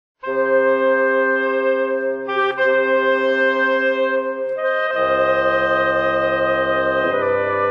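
Brass band playing a slow processional march in long, sustained chords. It comes in suddenly after a silence, and deep bass notes join about five seconds in.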